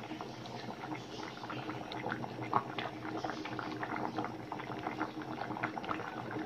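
Coconut milk boiling in a stainless steel pot with fish and pechay leaves in it: a steady bubbling with many small pops.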